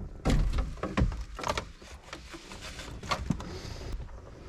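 Plastic interior trim being handled and set down: a string of irregular knocks, clicks and rattles, the loudest about a quarter second and a second in.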